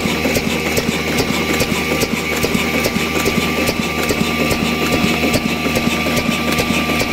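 Ruston Hornsby-type black stationary oil diesel engine running steadily, with an even, rapid beat of clicks from its valve and fuel-pump gear.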